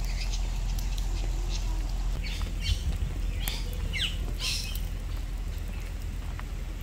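Birds in the trees giving a run of short, sharp falling squawks between about two and five seconds in, over a steady deep rumble.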